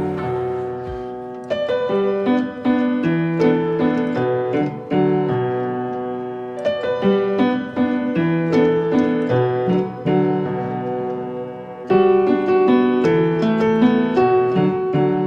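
Background music: a solo piano playing a gentle repeating pattern of chords and melody notes.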